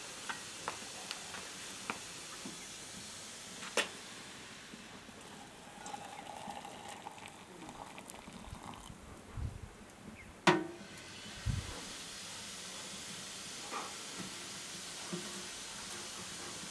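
Copper kettle and metal cooking pots being handled: light clinks, hot water poured from the kettle into a pot, a ringing metallic clang about ten seconds in and a couple of dull thumps, over a steady faint hiss.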